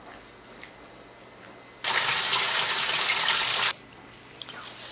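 Kitchen tap water running hard for about two seconds, turned on and off abruptly.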